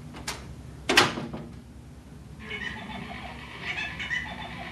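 A few sharp knocks, the loudest about a second in. From about halfway comes a high-pitched electronic giggle from a Tickle Me Elmo plush toy.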